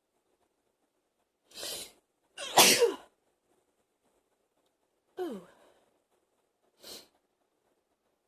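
A woman sneezing: a breathy sound about a second and a half in, then a loud sneeze with her voice falling in pitch, a shorter second burst with a falling voice about five seconds in, and a brief faint breath noise near the end.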